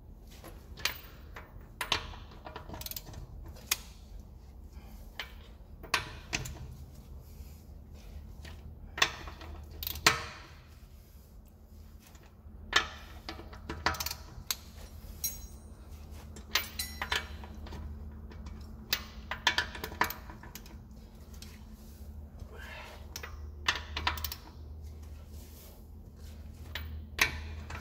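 Ratchet wrench and socket on a car's wheel lug bolts, giving scattered sharp metallic clicks and clacks, singly and in short clusters, as the bolts are tightened in a crisscross pattern, over a steady low hum.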